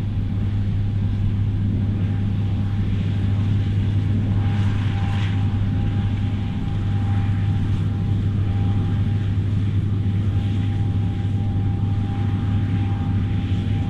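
John Deere combine harvester running steadily while cutting and threshing standing grain, a deep steady hum with a thin, even whine over it from about a third of the way in.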